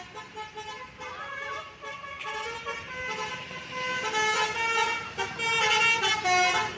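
Indonesian 'telolet' multi-tone bus air horn playing a quick tune of changing notes, louder in the second half.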